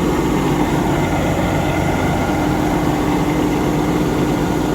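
Large combine harvester's engine running steadily under load while it unloads rice into a truck; a steady hum joins about two seconds in.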